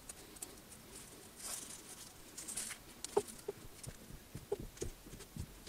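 Handling noise from a small electric motor being moved on a milling machine's steel table: a soft rustle and scrape, then from about three seconds in a scatter of light metal clicks and knocks.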